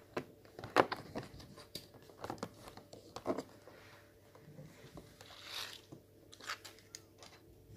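A cardboard advent calendar box being pressed and torn open by hand, giving sharp cardboard cracks and crunches, the loudest a little under a second in, then light clicks of small plastic Lego pieces handled on a tabletop.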